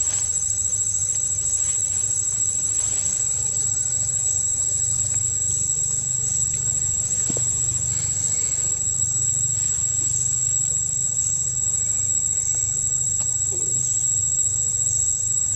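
Steady high-pitched drone of insects in the trees, with a faint regular pulsing just below it and a low steady rumble underneath.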